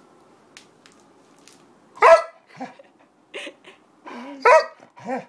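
A 15-year-old golden retriever barking: about five short barks starting about two seconds in, the first the loudest.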